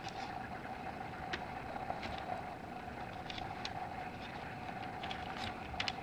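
Small, dull pocket-knife scissors clicking and scraping on a sheet of paper without cutting it: a few faint, scattered ticks over a steady background hum.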